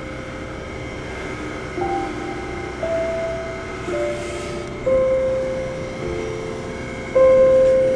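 Background music: a slow melody of single held notes, a new note struck about once a second and left to ring out, with a guitar-like sound.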